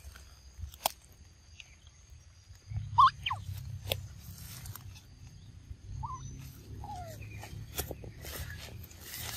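Rustling and footsteps through leafy ground cover, with the low rumble of a handheld camera on the move and a few sharp clicks. A few short chirping calls sweep quickly up or down in pitch about three seconds in and again around six to seven seconds. A faint steady high whine runs underneath.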